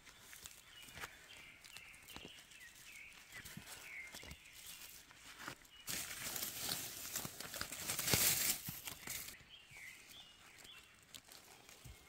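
Gloved hands rustling through dry pine-needle and leaf litter, with small snaps and clicks as parasitic plant shoots are plucked from the forest floor. The rustling grows loudest and densest from about six to nine and a half seconds in.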